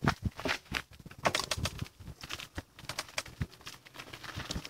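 Bicycle rolling over a rough dirt road shoulder: irregular clicks, crunches and rattles.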